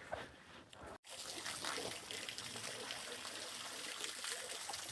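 Small waterfall splashing steadily. The water noise starts suddenly about a second in, after a quieter moment.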